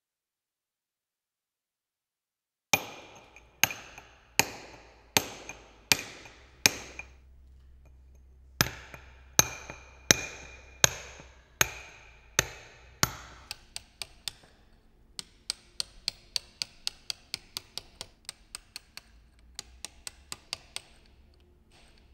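Club hammer striking a steel chisel on granite. Two runs of six evenly spaced ringing blows, each under a second apart, then a faster run of lighter taps, about three to four a second.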